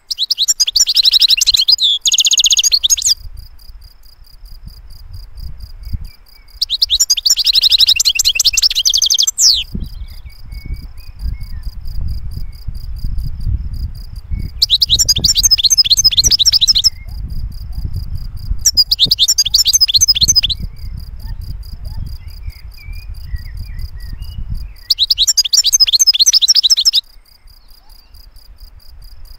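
European goldfinch singing: five rapid, twittering song phrases of two to three seconds each, with pauses between. A steady, pulsing high-pitched tone runs in the gaps between phrases.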